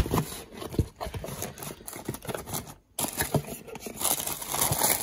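Cardboard shoebox being handled and tissue-paper wrapping crinkled and torn open by hand, as a run of irregular rustles and crackles. After a brief break near three seconds in, the rustling and tearing turns louder and denser.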